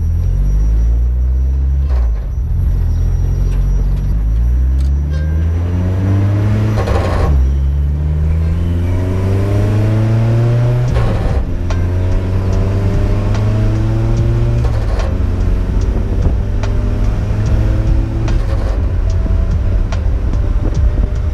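Turbocharged Mazda MX-5 Miata four-cylinder accelerating through the gears. The engine note climbs in pitch, then drops back at each gear change, with a short burst of noise at each shift. From about halfway the note holds steadier, with many sharp little pops and crackles.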